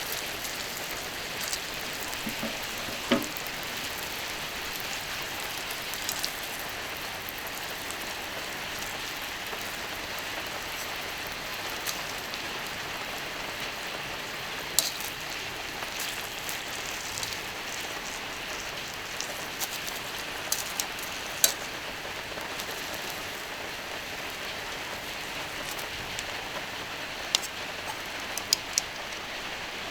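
Beef skirt steak sizzling on a hot iron griddle: a steady hiss with a few sharp pops and spits of fat.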